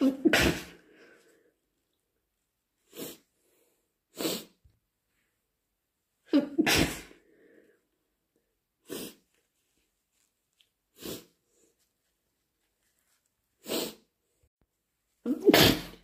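A person sneezing repeatedly: three loud, wet induced sneezes, one right at the start, one about six seconds in and one near the end, with five shorter, sharp bursts between them.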